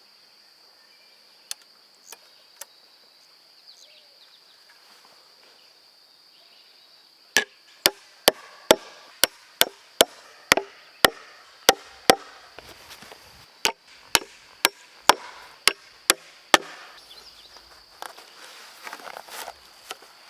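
A hammer driving nails into pine lumber: a few light taps, then two runs of quick, evenly spaced blows, a little over two a second. Insects drone steadily in the background.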